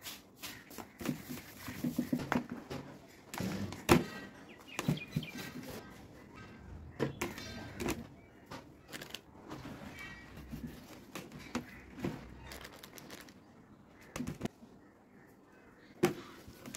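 Scattered knocks and clicks of a spoon and hands working over a plate while raw chicken breasts are seasoned and rubbed with spice; the loudest are single sharp knocks about 4 seconds in and twice near the end.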